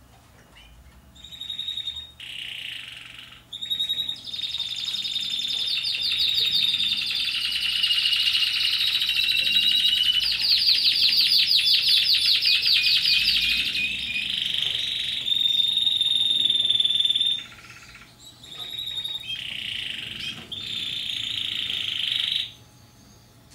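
Spanish Timbrado canary singing a long song of rolls and trills, with a fast rattling trill in the middle. It starts about a second in, breaks off briefly about three-quarters through, and stops shortly before the end.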